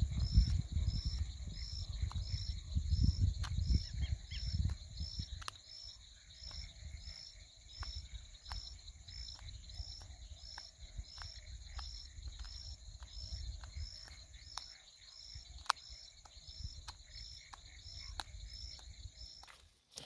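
A white-eared opossum chewing a bird, with sharp clicks about once or twice a second, over an insect chirping steadily about one and a half times a second. A low rumble is loudest over the first five seconds.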